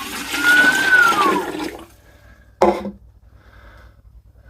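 Water pouring into a plastic measuring bottle for about two seconds, with a whistling tone that rises and then falls, then stopping. A short knock follows a little under a second later.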